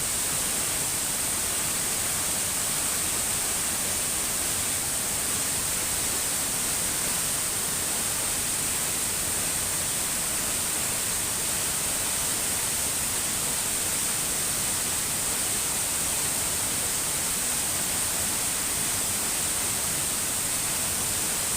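Waterfall: the steady, unbroken rush of falling water, heavy in the hiss.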